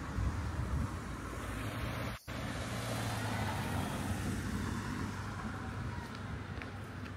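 Road traffic: a steady noise of cars passing on a street, with the sound cutting out sharply for a moment about two seconds in.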